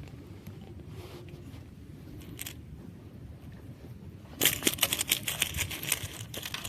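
Fishing reel clicking rapidly in a dense run of about two seconds, starting past the middle.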